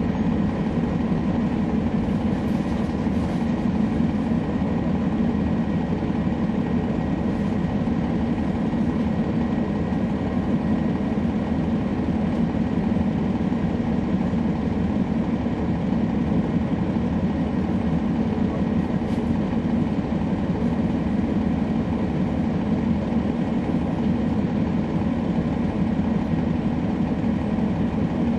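Steady drone inside the rear of a 2011 NABI 416.15 (40-SFW) transit bus, from its Cummins ISL9 diesel engine and ZF Ecolife 6AP-1400B automatic transmission, with no clear change in pitch or level.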